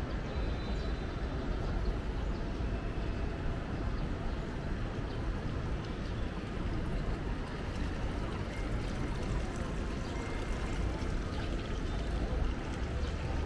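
City street ambience: a steady wash of background noise with a low rumble and no clear voices.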